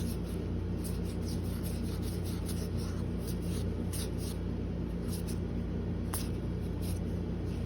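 Faint rustling and light ticks of a Magic: The Gathering booster pack and its cards being handled, over a steady low electrical hum.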